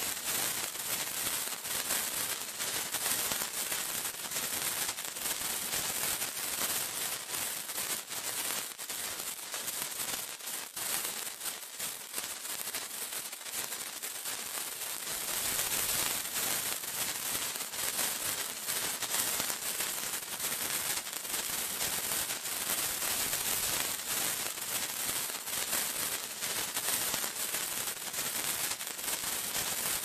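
Sparkler burning: a steady hissing crackle made of many fine, rapid pops, a little fuller from about halfway.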